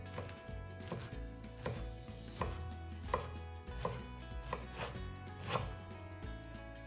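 Kitchen knife slicing through a clump of enoki mushrooms onto a wooden cutting board: slow, even chops, about eight knife strikes on the board, roughly one every three quarters of a second.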